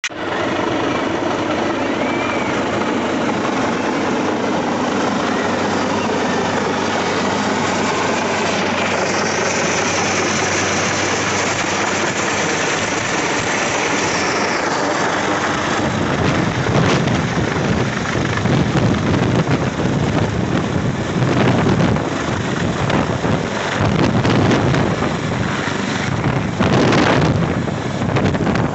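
Helicopter coming in to land, its rotors and engines running loudly. In the second half its rotor downwash buffets the microphone with uneven gusts.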